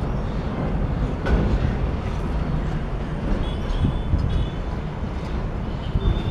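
Container freight train's wagons and brake van rolling past on the track: a steady low rumble with occasional wheel knocks over rail joints.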